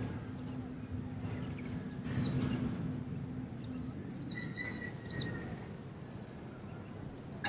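Outdoor ambience of birds giving scattered short high chirps over a steady low background noise, with a held low hum that fades out about halfway through.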